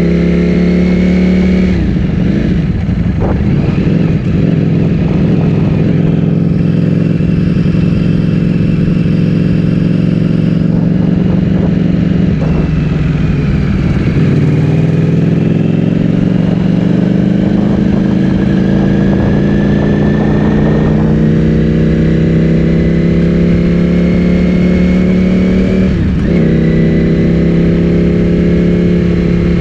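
Ducati Streetfighter V4S's V4 engine through an Akrapovic full-system exhaust, ridden at a fairly steady engine speed. Its note drops sharply a few times, around 2 s, 12 s and 26 s in, as the throttle is rolled off or a gear is changed, then climbs again in slow rising pulls.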